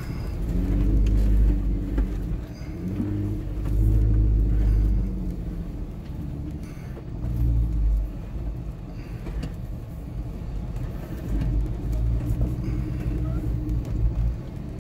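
An off-road vehicle's engine heard from inside the cab, pulling at low speed over slickrock. The low rumble swells with the throttle and eases off again several times, loudest about one, four and seven seconds in.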